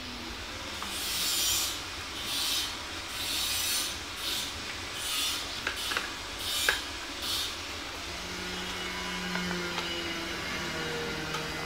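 Plastic phone cover rubbing and scraping against a smartphone's body as it is handled and fitted, in about seven short strokes with a couple of sharp clicks. A faint low hum follows in the last few seconds.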